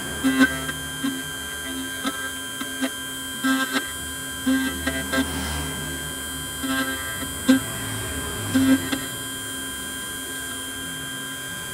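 Key-duplicating machine running with a steady high whine while its vertical end-mill cutter copies the tracks of a double-track key onto a blank, with irregular clicks and scrapes of the cutter on the metal. Guitar music plays along with it.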